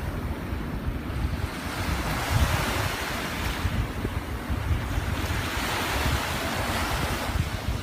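Ocean waves breaking and washing onto a beach, the surf's hiss swelling through the middle and easing near the end, with wind rumbling on the microphone throughout.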